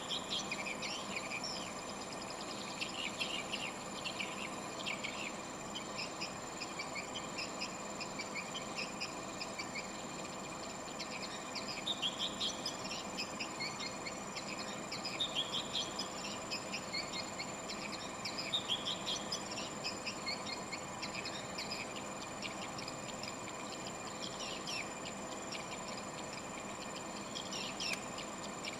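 Swiftlets twittering in bursts of rapid, high chirps, over a steady high-pitched whine and a low background hum.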